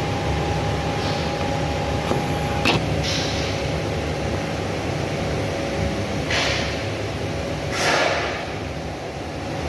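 Steady low room hum and hiss, with a sharp click about three seconds in and a few brief rustling swishes, three of them, spread through the rest.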